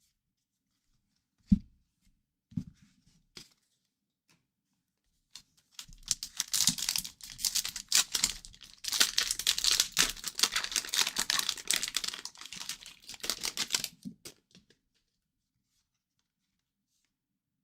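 A sharp knock and a couple of lighter knocks, then about eight seconds of tearing and crinkling as a hockey card pack's wrapper is ripped open.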